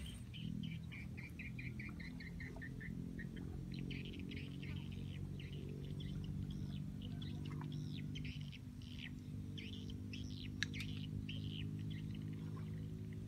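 Small birds chirping and calling. A quick run of short chirps, about four a second and falling slightly in pitch, fills the first few seconds, followed by scattered varied calls over a low steady drone.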